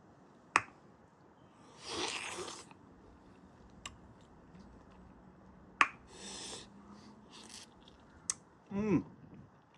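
Close-miked eating of mango slices: a few sharp mouth clicks and two short spells of crunchy, wet chewing, with a short hummed 'mm' near the end.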